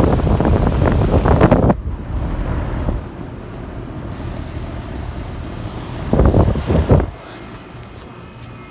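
2008 two-ton WeatherKing central air-conditioner condensing unit running with a steady low hum, with loud rushing noise near the start and again about six seconds in.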